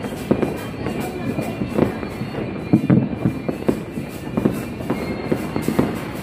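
Fireworks going off: a dense, irregular run of bangs and crackles, with a cluster of louder pops about three seconds in.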